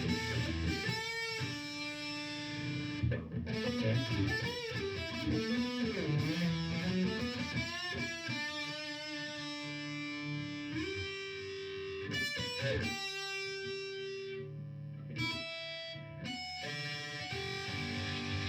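Solo electric guitar, a bolt-on SHXA through an amp's high-gain channel, noodling a pentatonic lead line recorded through a phone. Single notes with string bends come a few seconds in, then long held notes with plenty of sustain.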